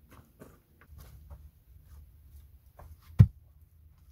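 A single heavy, dull thump about three seconds in, amid faint rustling and small knocks of someone moving about and handling things.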